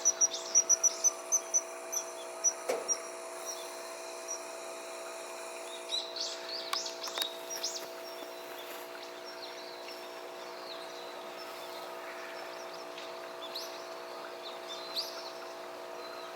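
Birds calling: a quick run of about a dozen sharp, high calls over the first three seconds, then scattered short chirps, over a steady low hum.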